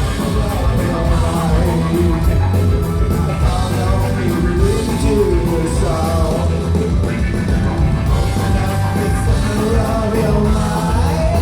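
Live rock band playing a loud, heavy rock song: distorted guitars, a bass holding low notes, drums, and a singer with a sliding melody line.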